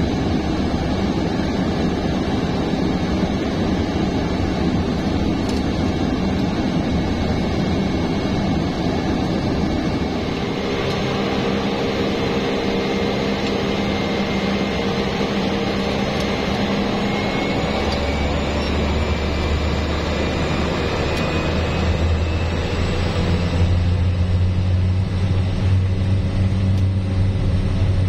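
Cabin noise of a single-engine turboprop on the ground, a steady engine and propeller drone heard from inside. About two-thirds of the way in a deeper drone and a rising whine come in, and it grows louder near the end.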